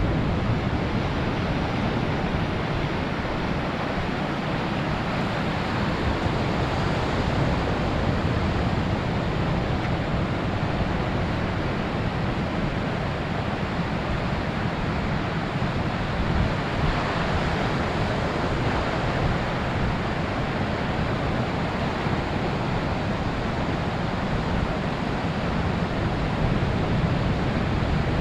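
Ocean surf breaking and washing up the beach in a steady rush, with wind noise on the microphone. One wave breaks louder about seventeen seconds in.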